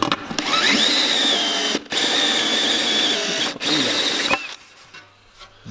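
Power drill running a step drill bit through a sheet-metal dashboard panel, widening the steering-column hole. The motor's whine rises, then holds at a steady high pitch with two brief breaks, and stops a little past four seconds in.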